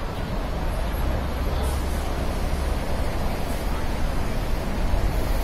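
Steady din of city road traffic heard from above the street: double-decker buses and cars running below, with a low rumble that swells for a couple of seconds near the start.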